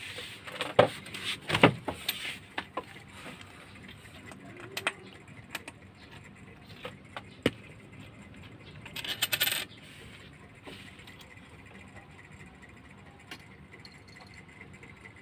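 A coin knocking and clinking on a glass counter top as a kitten paws and bats at it: scattered sharp clicks, the loudest near the start, and a short clattering rattle about nine seconds in.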